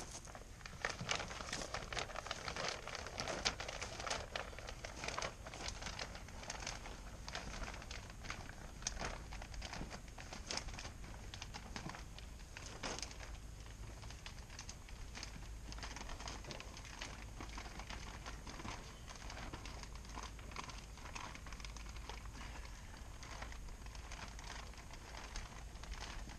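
Shrink-wrap plastic film crinkling and rustling by hand as it is pulled, folded into pleats and tucked under the perimeter strap along the boat's hull. The crackling is busiest in the first few seconds, then settles into lighter, scattered rustles.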